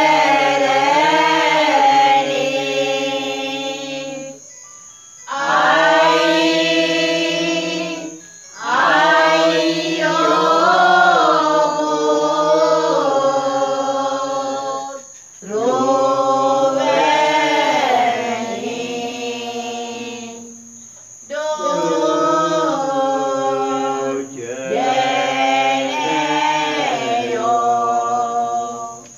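A group of voices singing pasan, Sinhala Catholic Lenten passion hymns, unaccompanied. The melody moves in drawn-out phrases, five of them, with short pauses for breath between.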